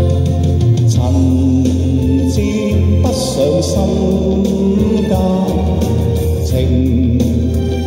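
Electronic keyboard playing an instrumental passage: held chords over a steady bass, with a few light cymbal-like hits.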